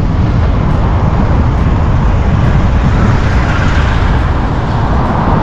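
Steady road and wind noise of a vehicle driving: a loud, even low rumble with hiss, without change.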